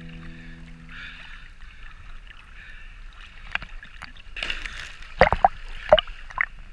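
Sea water lapping and sloshing against a camera at the surface. Several sharp, loud splashes come about five and six seconds in, as a cliff jumper plunges into the sea.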